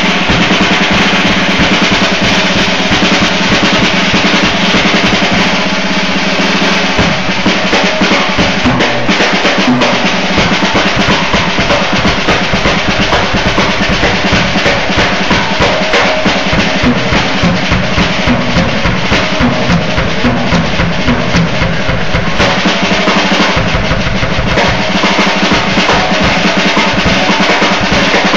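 Jazz drum kit solo: fast, unbroken strokes on the drums with the bass drum underneath.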